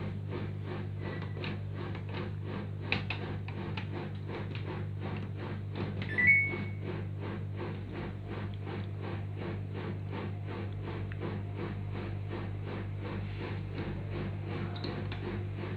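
Samsung front-loading washing machine running with a steady low hum and a regular faint ticking about three times a second. Its control panel gives one short rising beep about six seconds in.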